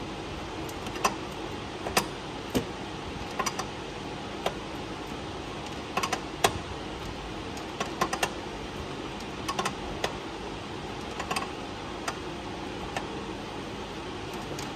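A wrench clinking on a small brass fitting as it is fitted and turned: a dozen or so sharp, irregularly spaced metal clicks over a steady background hum.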